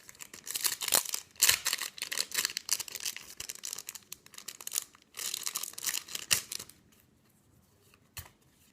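Foil wrapper of a Yu-Gi-Oh Dragons of Legend 2 booster pack being torn open and crinkled: a run of quick rips and rustles that stops about seven seconds in. One short click follows near the end.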